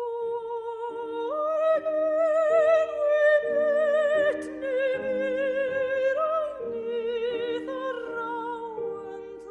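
A high voice singing in operatic style, holding long notes with a wide vibrato and stepping up in pitch about a second in, over a sustained instrumental accompaniment.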